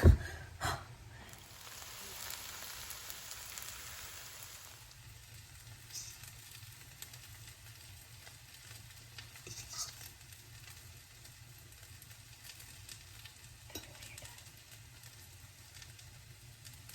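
Pancit rice noodles with chicken broth and soy sauce sizzling in a hot pan as they are stirred. A knock at the very start, a louder hiss for a few seconds, then a quieter sizzle with scattered clicks and scrapes of the utensil.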